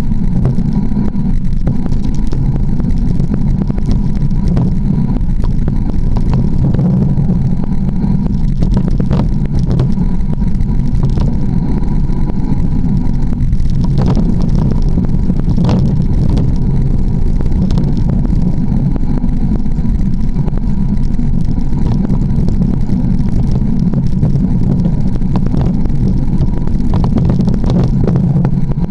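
Steady low rumble and rattle of a mountain bike rolling down a dirt singletrack, picked up through a camera mounted on the bike, with occasional sharp knocks as the wheel goes over bumps.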